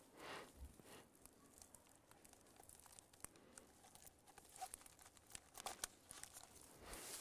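Faint rustling and crackling of dry fallen leaves underfoot and of clothing as a man shifts his feet and bends over, with a couple of audible breaths, one at the start and one near the end.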